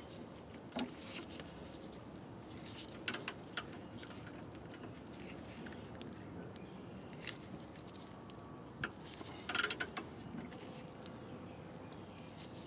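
Scattered light metallic clicks and clinks as a wrench with a pipe extension is worked on a rear brake caliper bolt, with the loudest cluster near the end, over a faint steady hiss.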